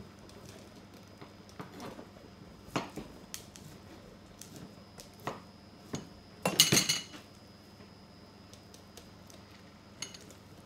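Kitchen knife knocking on a plastic chopping board while cutting cooked turkey into chunks: a few separate knocks, with a louder clatter about two-thirds of the way through.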